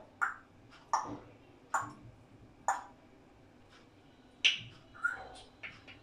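African grey parrot making a string of short, sharp clicks and pops, irregularly spaced. The loudest comes about four and a half seconds in, and several quicker ones follow near the end.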